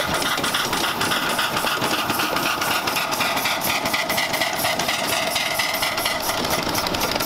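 Miniature live-steam locomotive running past with its exhaust chuffing in a quick, even rhythm of several beats a second.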